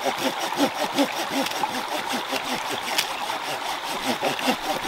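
Small rocky stream running and gurgling steadily, with one sharp click about three seconds in.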